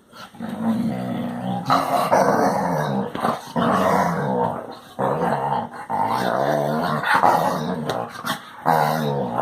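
Basset hound making a string of long, drawn-out, pitched vocal noises, one after another with short breaks between them.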